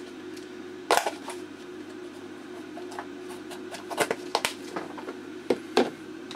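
Sharp clicks and light knocks of small objects being handled on a workbench: one about a second in, a quick cluster around four seconds, and two more near the end, over a steady low hum.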